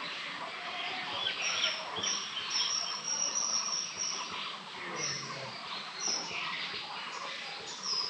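Several birds chirping and calling over one another, with a short high note repeated several times a few seconds in.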